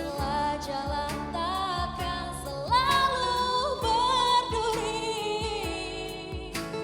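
Pop song with a sung vocal melody over a steady drum beat; the voice swoops up to a held, wavering note about three seconds in.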